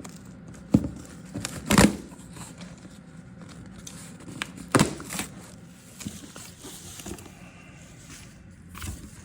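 Workshop handling noise: a few sharp knocks and clanks, the loudest about two seconds in, over a low steady hum.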